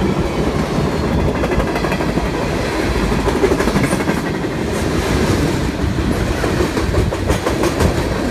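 Freight cars of a mixed freight train rolling past at close range: a steady rumble of steel wheels on rail with a clickety-clack of wheels over rail joints, and a cluster of sharper clicks near the end.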